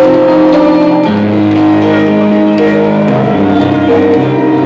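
Loud DJ-set music over a sound system: a bass line under held melodic notes that change pitch every second or so.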